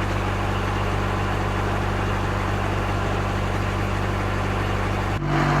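Diesel truck engine idling steadily. About five seconds in, the hum breaks off briefly and resumes at a slightly different pitch.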